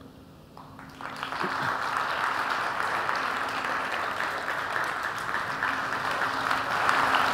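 Audience applauding, starting about a second in and holding steady, a little louder near the end.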